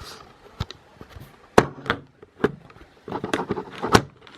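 Handling noises: a string of sharp clicks and light knocks, about half a dozen, the loudest about a second and a half in and again near the end, as the camera is set down and hands and a flathead screwdriver work at the laptop.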